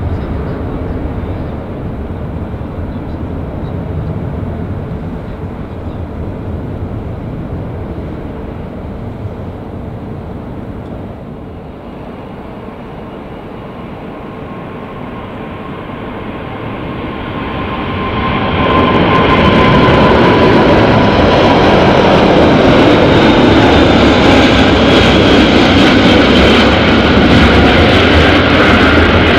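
Jet engine rumble, moderate at first, then about two-thirds of the way in the loud roar of an Airbus A380-861's four Engine Alliance GP7200 turbofans at takeoff thrust as it climbs out past, with a whining tone that slides slightly lower in pitch.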